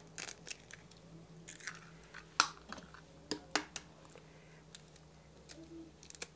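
Raw eggs tapped against a spoon and their shells broken open by hand: a series of sharp clicks and crackles, the loudest about two and a half seconds in.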